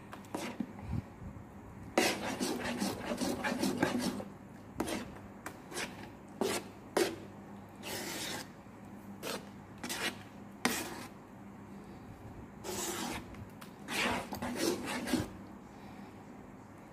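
A spatula scraping and stirring a thick pan of cooked black sticky rice (biko), in irregular bouts of strokes with short pauses between.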